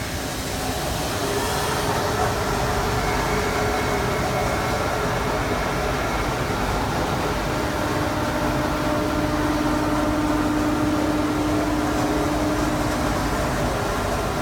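CNC tool grinding machine running: a steady mechanical noise with a whine, which settles to a lower, stronger tone around the middle.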